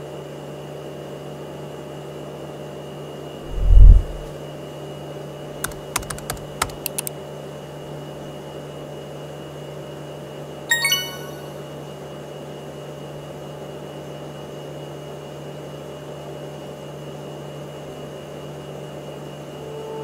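Steady room hum with a few quick keyboard keystroke clicks about six seconds in. A low thump about four seconds in is the loudest sound, and a sharp click with a brief ringing tone comes near eleven seconds.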